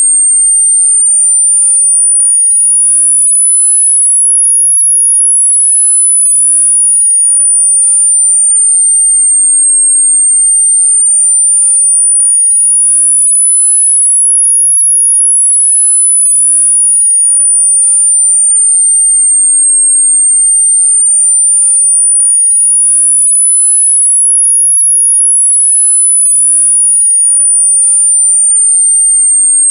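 Tinnitus-masking sweep: a single very high-pitched pure tone, an 8.5 to 10 kHz sweep, gliding smoothly up and down about once every ten seconds.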